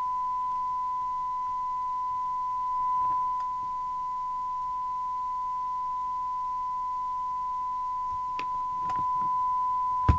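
A steady single-pitch test tone from the Mustang 3000 CB radio as it receives a tone-modulated test signal from the signal generator during alignment. A few light clicks come near the end, and one sharp click just before the end.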